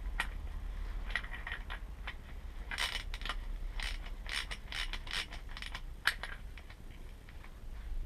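Small metal parts and hand tools clicking and scraping in an irregular run, busiest in the middle, with one sharper click about six seconds in, over a steady low hum.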